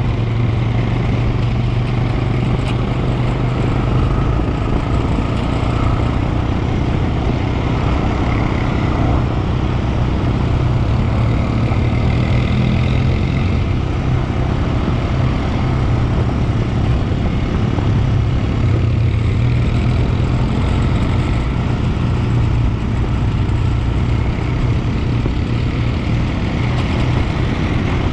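Quad bike engine running steadily while riding over sand at an even speed, a constant low engine drone under a wide rushing noise.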